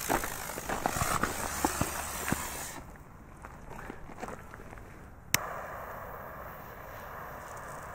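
Footsteps crunching on stony ground for the first few seconds. Then a single sharp click of a lighter being sparked a little past five seconds in, followed by a steady hiss of the lighter's gas.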